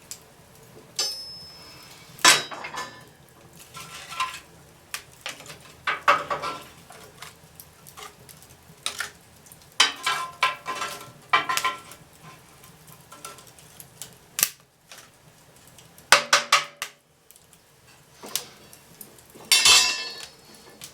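Irregular knocks and clatter of pieces of wooden fruit-crate wood being handled and laid on a fire in a fireplace, some with a brief ringing clink.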